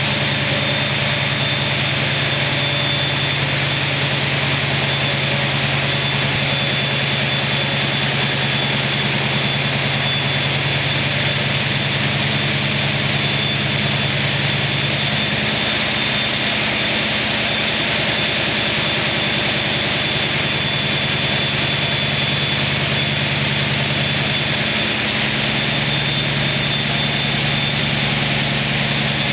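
The diesel engine of CP 1901, a CP 1900-class diesel-electric locomotive, running steadily at idle during test running after heavy maintenance, with a constant high whine over the engine note. The low engine note shifts slightly about halfway through.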